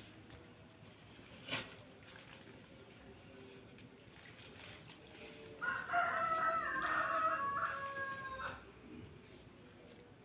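A rooster crowing once, a single crow of about three seconds starting a little past halfway. A short knock sounds about one and a half seconds in.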